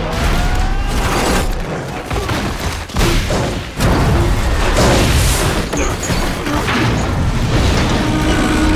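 Film sound effects of a train wreck: heavy crashing and booming as a wooden railroad car tumbles and breaks apart, with rumbling, grinding debris between a run of big hits about a second and a half, three, four and five seconds in.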